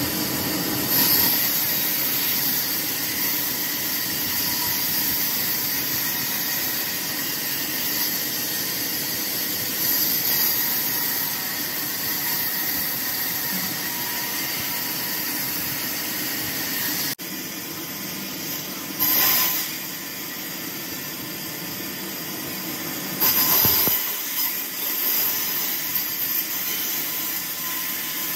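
Large vertical band saw running and cutting through a log: a steady, even hissing rasp of the blade in the wood. It gets briefly louder a few times in the second half.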